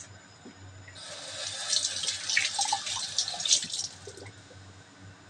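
Kitchen tap running into a sink for about three seconds, a splashing hiss that starts about a second in and stops abruptly.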